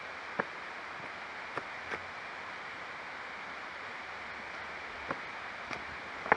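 A few scattered footsteps on a stone-paved path, short sharp steps with a pause in the middle, over a steady hiss.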